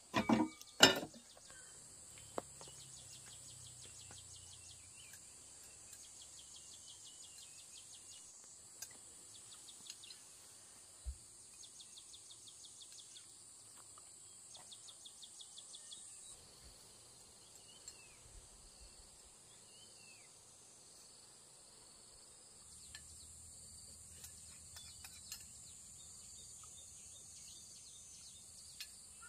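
Insects chirring steadily, with short trains of rapid pulses and a few bird chirps. In the first second a ladle knocks several times against the pot as porridge is served, the loudest sound here.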